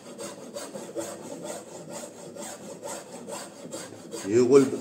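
Hand file scraping back and forth across wood in quick, even strokes, about three a second, smoothing the surface. A short, louder sound comes near the end.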